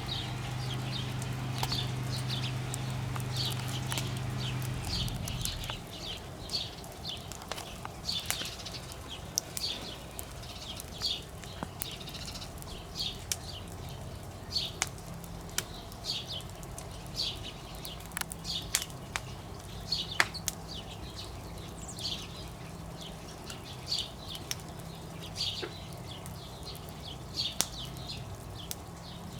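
Campfire crackling with scattered sharp pops, over a repeated short high chirp about once a second or a little faster. A low steady hum stops about five seconds in.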